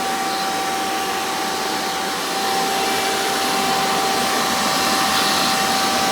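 Hoover Encore Supreme upright vacuum (1995, model U5059-930) running in tool mode, pulling air through its attachment hose. The motor gives a steady whine over the rush of air and gets a little louder about two seconds in.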